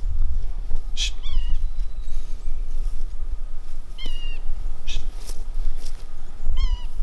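Three short, high, meow-like whines from a dog, about a second, four seconds and six and a half seconds in, each rising and then falling off. Several sharp clicks come between them, over a steady low rumble of wind on the microphone.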